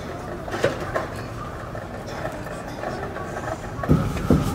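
Batter being stirred with a wooden paddle in a large aluminium pot. Near the end the paddle beats the batter in rhythmic low thumps, about three a second, over steady background noise.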